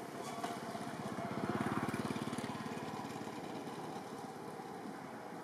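A small engine buzzing, growing louder about a second in and fading away again.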